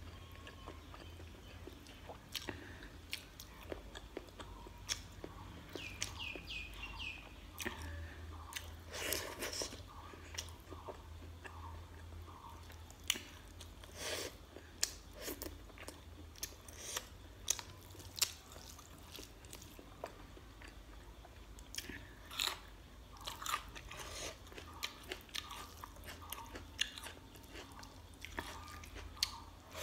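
Close-miked chewing and biting of rice and chicken eaten by hand, with frequent irregular wet mouth clicks and smacks.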